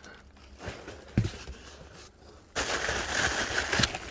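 Shipping-box packing padding being handled and pulled out: a single knock about a second in, then about a second of loud crinkling rustle that cuts off near the end.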